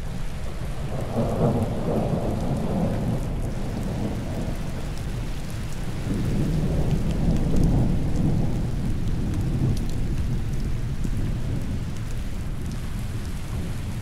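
Steady rain falling, with fine drop ticks over a continuous hiss. Thunder rumbles twice, about a second in and again around six seconds in, the second rumble longer.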